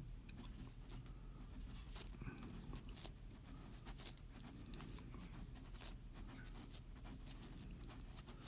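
Faint rustling and scattered small clicks of string being wrapped tightly around the end of a rope by hand.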